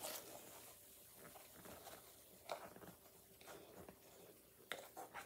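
Near silence: faint room tone with a few soft taps and clicks, the loudest near the end as a salt container is picked up and handled.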